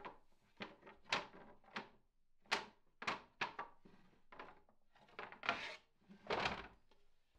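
Wooden skateboard decks clacking against one another as a hand flips through a stacked row of them, about a dozen irregular knocks, with a couple of longer scraping sounds in the second half as a deck is drawn out.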